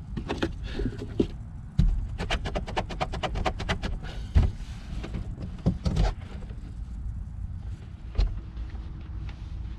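A plastic cooler strapped down with webbing is rocked by hand, giving a fast rattle of clicks for about two seconds and then a few single knocks.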